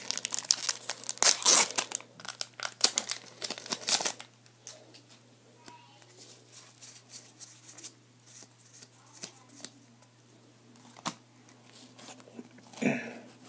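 Foil booster-pack wrapper torn open and crinkled for about the first four seconds. Then quieter, faint handling of cards with a few light ticks.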